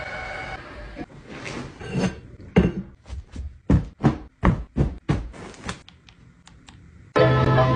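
A string of about ten sharp, irregular knocks and taps, as from household objects being handled and set down. Music starts suddenly near the end.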